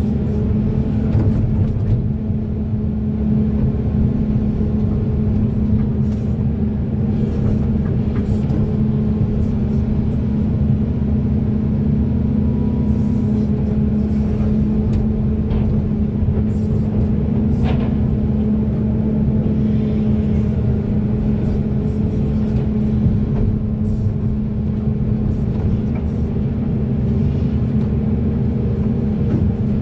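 Large Caterpillar hydraulic excavator's diesel engine running steadily at a constant pitch, with a few faint clicks now and then.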